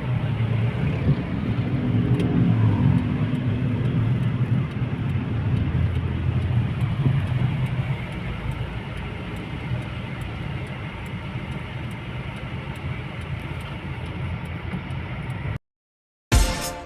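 A vehicle running on the road: a steady low rumble of engine and road noise, easing off a little about halfway. Near the end it cuts off abruptly into a moment of silence, then music starts.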